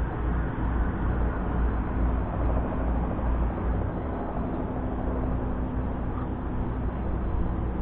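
Wind buffeting an action camera's microphone: a gusty low rumble that swells and eases every second or so.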